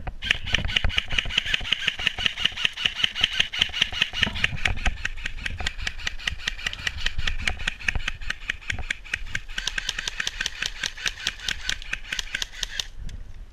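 A small motor running with a rapid, even rattle and a whine on top. The whine drops in pitch about nine and a half seconds in, and the sound stops briefly near the end.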